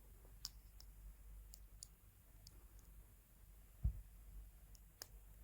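Faint, scattered small clicks of a terminal removal tool and plastic connector being worked to lift a terminal's locking tab, with one dull low thump about four seconds in.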